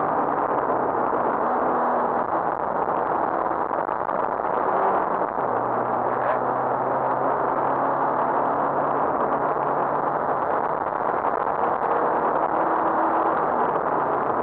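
Rally car at speed, heard from inside the cabin: a loud, steady mix of engine and road noise, the engine's pitch stepping up and down every few seconds as it moves through the gears.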